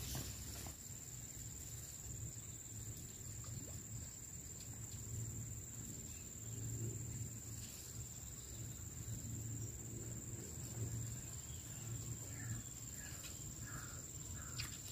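A steady high-pitched insect trill, unbroken, over a low background rumble.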